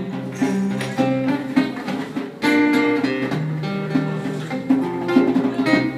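Acoustic guitar being strummed and picked in a live improvised jam, getting louder and fuller about two and a half seconds in.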